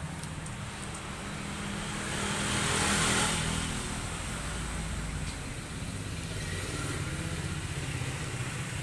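Passing road traffic: a vehicle swells past, loudest about three seconds in, over a steady low engine hum.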